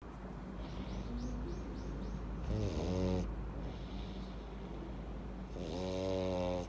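Flat-nosed pug snoring in deep sleep with a peculiar snore. There are two loud, pitched snores, each rising in pitch as it starts: the first comes about two and a half seconds in, and the second, longer one comes near the end.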